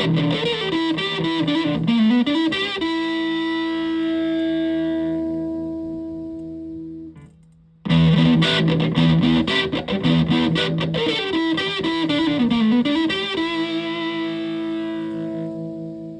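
Electric guitar with humbucker pickups played through a heavily modified Buzzaround fuzz pedal, giving a distorted, fuzzy tone. A quick run of picked notes ends on a held note that rings out and fades. The phrase then stops briefly, about halfway through, and is played again, ending on another fading held note.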